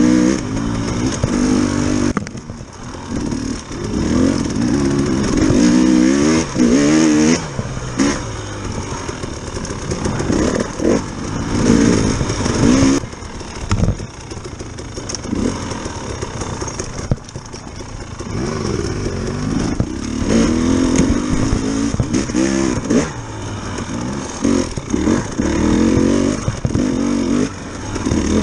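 Dirt bike engine heard close from the rider's seat, revving up and dropping back again and again as the throttle is opened and closed over a rough trail, with occasional sharp knocks from the bike.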